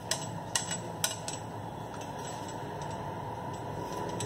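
Light metallic clicks and clinks from a kitchen mixer tap's metal fittings, braided flexible hoses and pliers being handled, about four in the first second and a half. Then a steady low hum.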